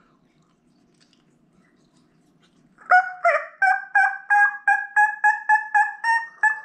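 A mouth diaphragm turkey call blown in a long run of hen yelps, evenly paced at about three a second, starting about three seconds in.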